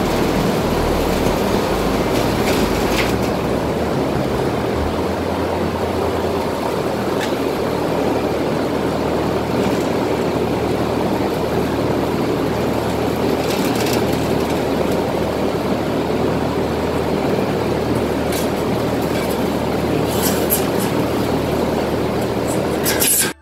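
Steady, loud machine drone with a low hum underneath, with a few light clicks and taps that come more often near the end.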